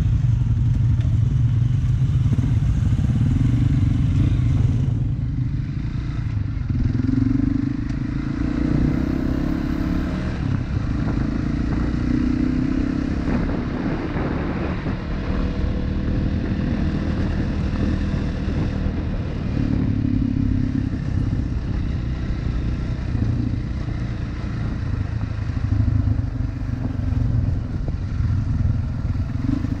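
Motorcycle engine running as the bike is ridden at low speed, the engine note rising and falling every few seconds with the throttle.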